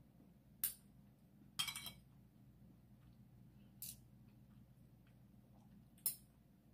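Metal spoon and fork clinking and scraping against a ceramic plate while eating, four short clinks, the second one longer and ringing briefly.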